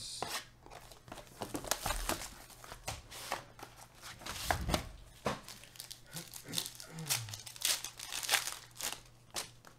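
Foil trading-card pack and plastic wrapping being crinkled and torn open by hand while a box of Panini Origins football cards is unpacked: irregular crackling with sharp tearing sounds throughout.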